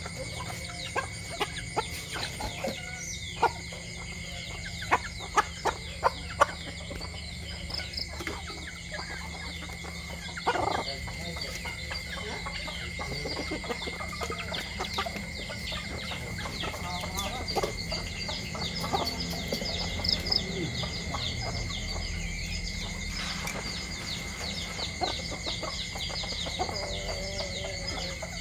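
Chickens clucking while they peck scattered rice off concrete, with sharp pecking taps, several loud ones in the first few seconds, and short calls now and then.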